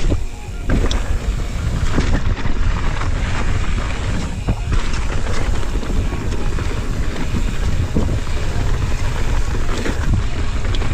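Wind buffeting the microphone and mountain bike tyres rolling fast over a dirt trail, with frequent short rattles and knocks from the bike over bumps.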